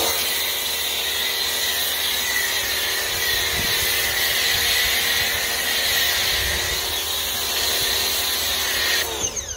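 Craftsman 1700 PSI electric pressure washer running with its foam cannon spraying a steady, loud hiss of foam over the motor and pump. The spray cuts off suddenly about nine seconds in.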